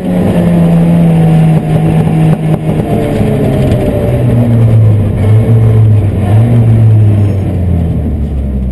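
Inside the cabin of an Opel Astra GSI 16V rally car: its 16-valve four-cylinder engine running at a steady note, which steps lower about three seconds in and drops again near the end as the car slows.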